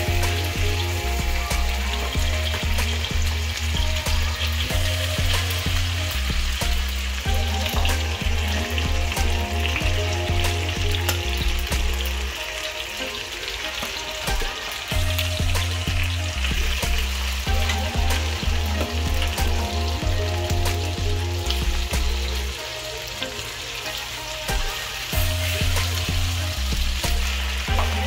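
Halved red potatoes sizzling in hot oil in a frying pan, a steady hiss throughout. Under it runs background music with a stepping bass line that drops out for a few seconds twice.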